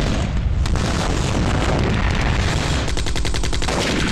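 Automatic gunfire from a film action scene: a dense, continuous stream of shots, with a fast, evenly spaced burst about three seconds in.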